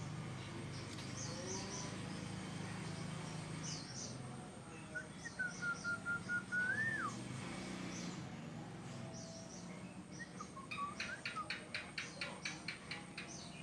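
Pet bird calling: short high chirps, then a drawn-out whistle that rises sharply at its end about five seconds in, then a fast run of chirps near the end.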